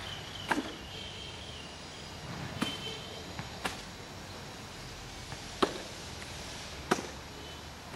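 Five sharp taps or knocks, one to two seconds apart, over a steady outdoor background, with faint thin high tones in the first two seconds.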